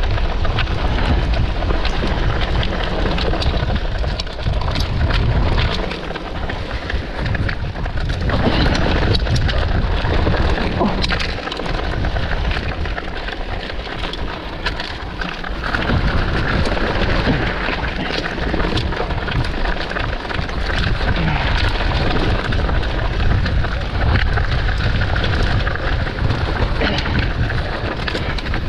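Mountain bike descending a wet, rough dirt singletrack, heard from a camera mounted on the bike: a steady rush of tyre and wind noise with constant rattling and clattering of the bike over the ground.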